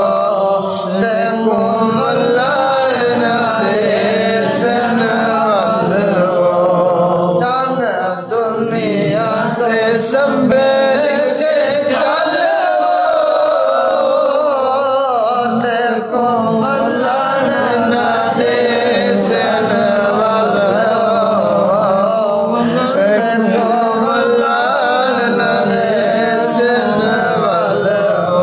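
A naat, an Islamic devotional song, sung in a continuous melodic chant with long held notes that bend in pitch.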